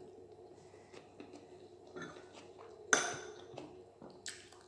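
A sharp clink on a ceramic dinner plate about three seconds in that rings briefly, with a smaller clink just before the end and faint soft taps of fingers working rice and egg on the plate in between.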